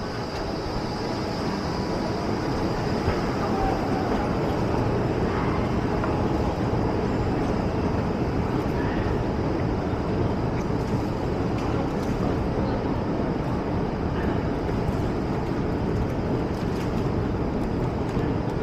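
Underground metro station ambience: a steady low rumble of machinery and ventilation, with a faint high whine.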